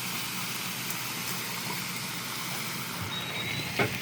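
Chicken breast sizzling steadily on a hot George Foreman electric contact grill, with a single click near the end.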